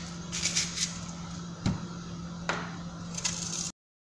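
Kitchen knife cutting a red onion: crisp slicing and scraping sounds with a few sharp knocks of the blade on a wooden cutting board, over a steady low hum. The sound cuts off abruptly near the end.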